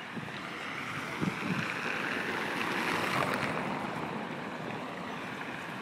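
City street traffic: a car driving past, its tyre and engine noise swelling to a peak about halfway through and then easing off.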